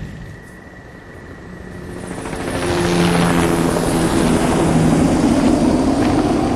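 A vehicle approaching: its engine fades in and grows louder over the first three seconds or so, then runs steadily.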